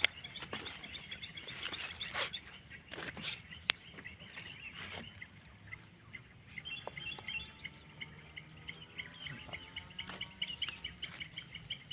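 Scattered sharp clicks and knocks, then from about halfway through an animal calls in fast, evenly repeated chirps, about seven a second.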